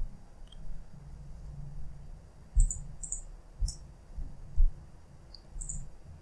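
Computer mouse and keyboard clicks, a handful of sharp ones spaced irregularly, with soft low thumps from the desk beneath them.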